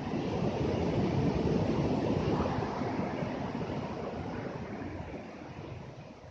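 Steady rushing noise with no distinct calls, swelling about a second in and fading near the end.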